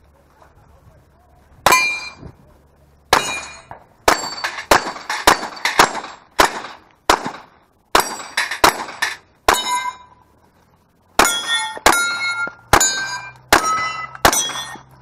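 Rapid pistol shots at steel targets, each shot followed by the ring of a struck steel plate. About twenty shots come in quick runs, with a pause near ten seconds.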